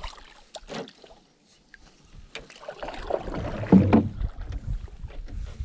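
Canoe paddle strokes through lake water beside an aluminum canoe: a few light clicks early on, then a swelling rush and splash of water as a stroke is pulled, loudest about two thirds of the way through.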